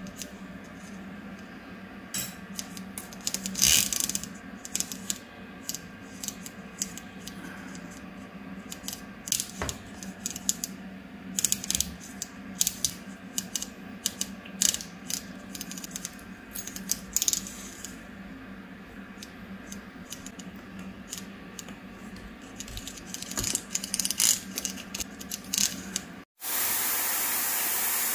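Small metal clicks and scrapes as a brass fitting is worked by hand into the rubber inner tube of a shower hose, over a low steady hum. About two seconds before the end it cuts to a steady rush of running water.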